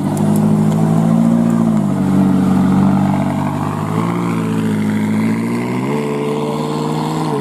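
McLaren 570S Spider's twin-turbo V8 pulling away at low speed, its exhaust note rising and dropping, then stepping up twice, about four and six seconds in.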